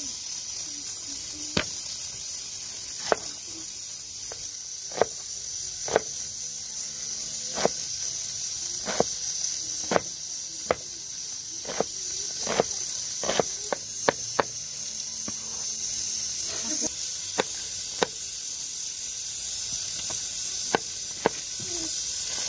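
Kitchen knife chopping onion and then green chillies on a wooden cutting board: sharp single knocks of the blade on the board, irregularly spaced at about one a second, some in quick pairs, over a steady high hiss.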